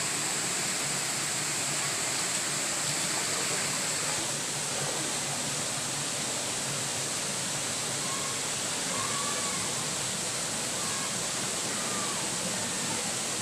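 Steady rush of fast-flowing river water and a small waterfall, an even hiss that does not change.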